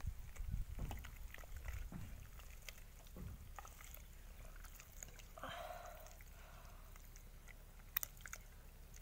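A hand squelching and kneading wet batter of wheat flour and jaggery water in a steel pot, faint and uneven, with soft low thumps in the first few seconds. A short faint call sounds a little past halfway, and a sharp click near the end is the loudest sound.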